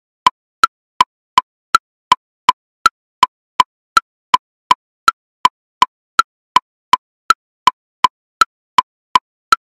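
MetronomeBot electronic metronome at 54 BPM subdividing each beat into triplets: a high woodblock click on each beat followed by two lower clicks. The clicks are evenly spaced and steady, close to three a second.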